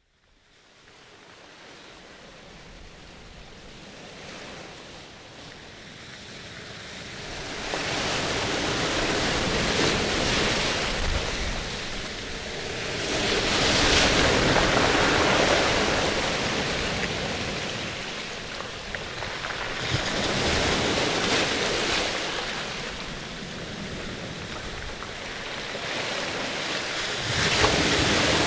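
Water rushing and splashing in a reef aquarium, its surface churned by the tank's circulation pumps. The sound swells and eases in surges every six or seven seconds.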